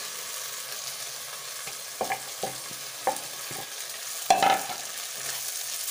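Potatoes and spice paste sizzling in a frying pan while cauliflower florets are tipped in from a bowl, giving a handful of short knocks as they land, the loudest about four seconds in.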